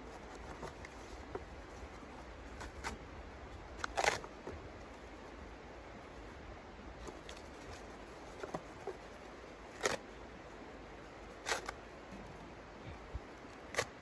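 Sharp snaps and clicks of kindling and sticks being handled and broken at the firebox of a small steel wood-burning stove, a few seconds apart, over a steady low outdoor hiss.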